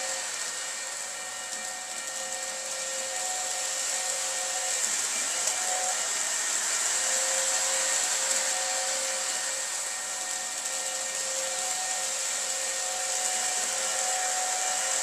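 Lionel O gauge Polar Express model train running laps around its track: a steady electric-motor whir and metal wheel rumble with a hiss over it, swelling and easing slightly as the train comes nearer and goes farther.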